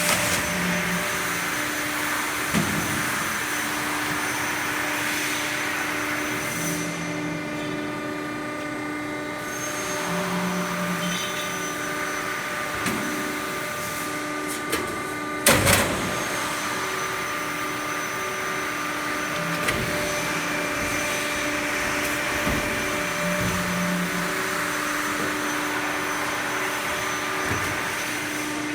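CNC guillotine shear running with a steady machine hum, a soft low pulse every three or four seconds, a few light knocks, and one loud double clank of metal about halfway through.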